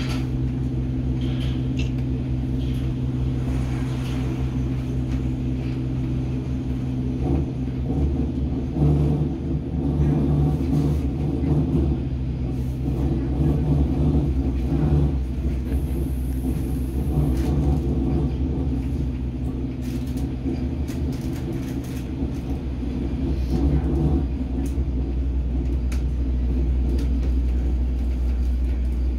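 Hamburg U-Bahn DT5 train running between stations, heard from inside the car: a steady electric hum from the drive with wheels rumbling on the track, rougher and a little louder through the middle.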